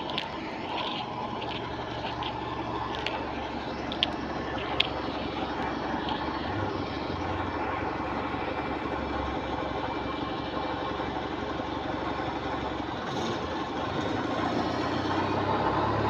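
Bus running, heard from inside: engine and road noise with a low hum, and a string of sharp clicks over the first five seconds. It gets a little louder near the end.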